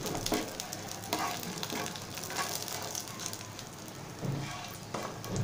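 Garlic, black cumin and dried red chillies sizzling in hot mustard oil in a non-stick frying pan, with a few light knocks and scrapes of a wooden spatula stirring them.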